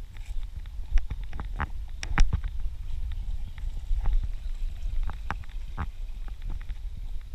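Running footsteps on a dirt and rock trail, irregular knocks a few times a second, over a steady low rumble of wind and movement on a body-worn GoPro action camera's microphone.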